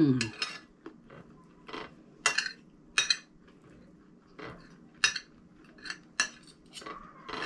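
Metal spoon and fork clinking and scraping on a ceramic dinner plate while eating, about eight sharp clinks at uneven intervals.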